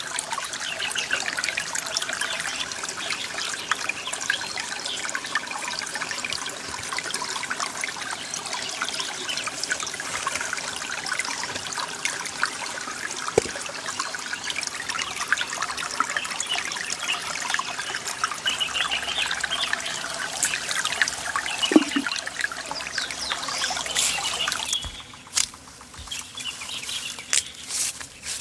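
Water trickling steadily in a shallow rocky stream. The trickle cuts off sharply about 25 seconds in, leaving a few sharp taps.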